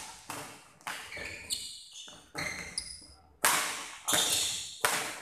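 Badminton rally: a racket strikes the shuttlecock about seven times in quick succession, roughly one hit every 0.7 s, each crack echoing in the hall. Short high squeaks of shoes on the court come between the hits.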